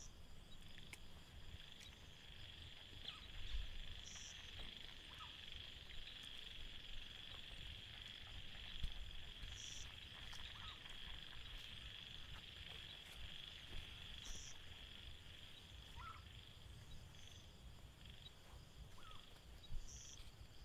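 Steady high-pitched chorus of night insects and frogs, with a short higher chirp about every five seconds over a faint low rumble.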